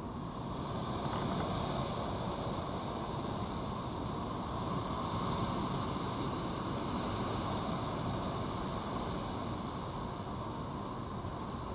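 Steady rushing background noise with no distinct events, swelling slightly about a second in.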